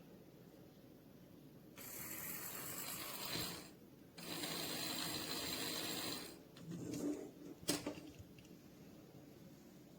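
Theo Klein 9532 toy Bosch immersion blender running in two bursts of about two seconds each, its electric sound effect and spinning blade, followed by a few sharp clicks about eight seconds in.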